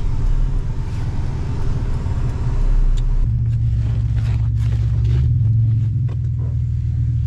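Toyota Tacoma pickup's engine running with a steady low rumble. The engine note shifts about three seconds in.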